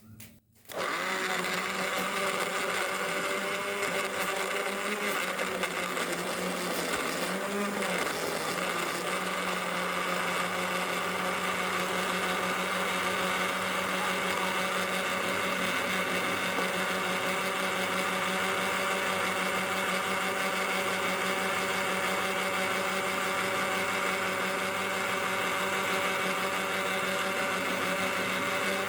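Electric blender motor running steadily, pureeing chunks of pineapple, carrot and turmeric with lime juice into a smoothie. It starts about a second in, and its pitch dips briefly about eight seconds in.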